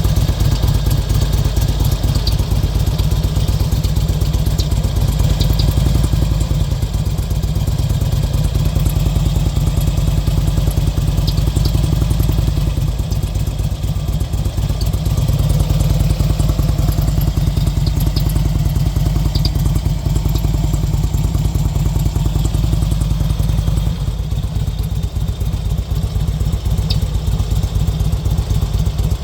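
Harley-Davidson Road King Classic's V-twin engine running steadily at low speed, with the loping rhythm of a big V-twin and small swells in level.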